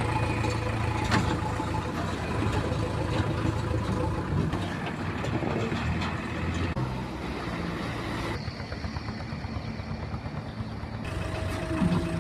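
Diesel engine of an excavator running steadily under load, a low hum with occasional knocks from the digging.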